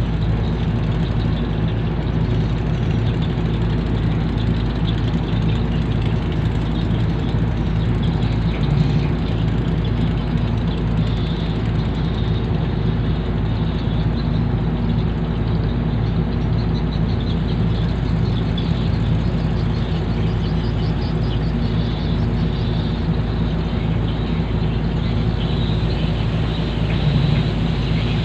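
Landing craft's diesel engines running steadily under way, a constant low hum.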